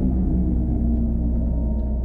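Synthesized electric-vehicle interior driving sound: a smooth, harmonic drone with a steady low hum under several sustained tones. It is an adaptive sound generator that morphs its character with the detected driving style.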